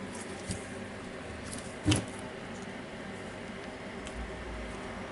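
Faint handling of a cordless rotary hammer's parts during disassembly, with one sharp click about two seconds in.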